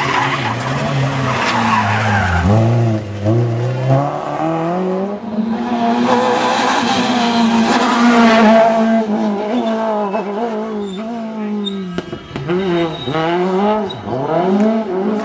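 Rally cars' engines at high revs, dropping away as the drivers lift and brake, then climbing again hard as they accelerate out of a tight bend. Several cars pass one after another, with repeated falling-then-rising sweeps in engine pitch.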